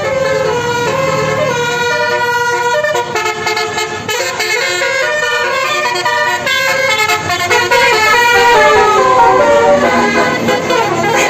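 Bus 'telolet Basuri' multi-tone air horn playing a tune: a quick run of held horn notes stepping up and down in pitch, loud, over the low running of the bus.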